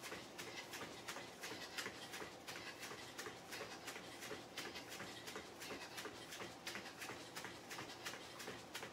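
Feet landing on a foam floor mat while jogging in place with high knees, with about four soft, even footfalls a second.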